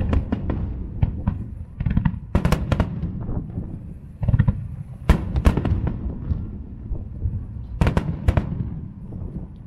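Aerial firework shells bursting in quick clusters of sharp bangs over a low rumble, thinning out near the end.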